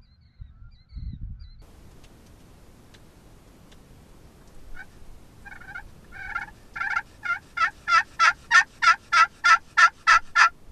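Glass friction pot call scraped with a wooden striker, calling a run of hen-turkey yelps. The run starts soft about halfway through, then builds louder to about three notes a second before stopping near the end. A few soft handling thumps come in the first second or so.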